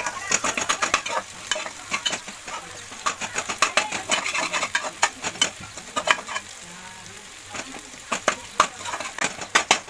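A metal ladle scraping and clinking against the inside of an aluminium pressure cooker, stirring chopped onions and tomatoes as they fry, over a soft sizzle. The scrapes come in quick runs of strokes, with a lull about two thirds of the way through before a last busy run near the end.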